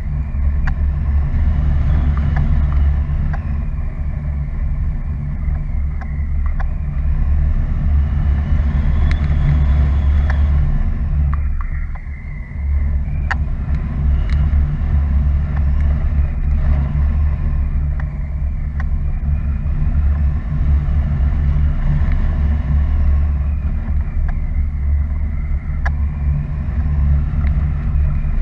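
Wind buffeting the microphone of a camera carried on a paraglider in flight: a loud, steady low rumble, with a hiss above it that swells and fades every several seconds, and a brief lull about twelve seconds in.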